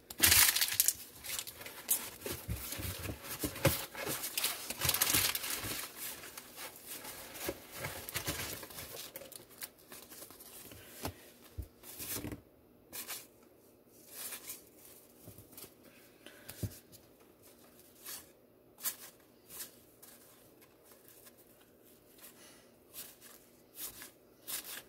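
Wax-paper wrappers of baseball card wax packs being ripped open and crinkled by hand: a dense crackling for about the first ten seconds, then sparser rustles and clicks.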